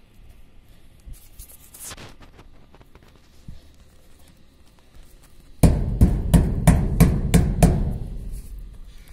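Faint rubbing of a hand smoothing a bitumen-foil patch onto a galvanized profiled steel roof sheet, then, a little past the middle, a quick run of about seven loud knocks on the sheet, about three a second, each with a short hollow ring.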